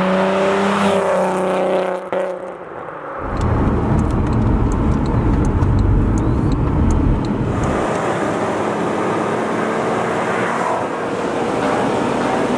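Supercharged VW Golf R32's VR6 engine and exhaust revving: a pitched engine note for the first two seconds, a brief dip, then a heavy low rumble under hard throttle with a scatter of sharp ticks. In the second half it settles into steadier running.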